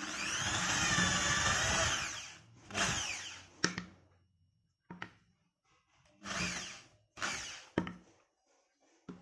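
Electric drill with a twist bit boring a hole through a small block of soft wood: the motor runs under load for about two seconds, its pitch wavering. Then come several short runs of the drill and a few sharp knocks.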